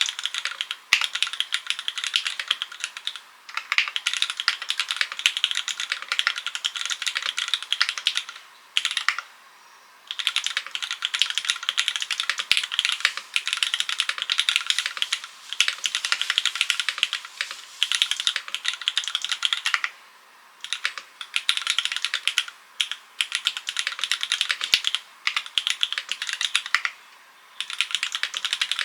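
Continuous typing on a Transition TKL full-aluminium mechanical keyboard with Cherry MX Black linear switches, a carbon top-mount plate, no foam, and ABS/PBT keycaps: dense runs of key clacks, broken by a few brief pauses.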